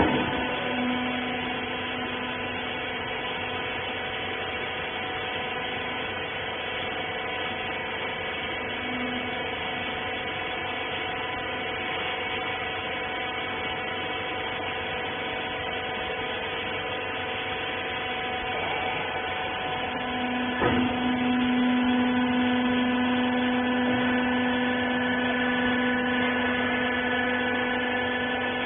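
Hydraulic baler's electric motor and pump running with a steady hum of several tones. About two-thirds of the way through there is a click, after which a lower hum comes in louder and holds.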